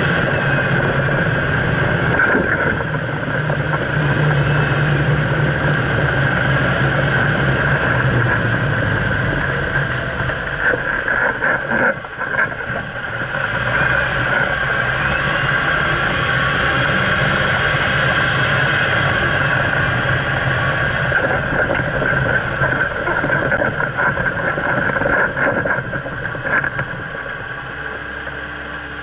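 Jeep Wrangler JKU Rubicon driving, heard from a camera mounted low under the front suspension: a steady mix of engine, tyre and wind noise, with a few knocks partway through.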